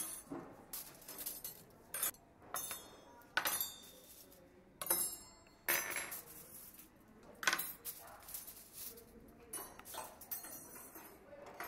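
Cutlery and dishes clinking and clattering: about a dozen sharp clinks at irregular intervals, some ringing briefly.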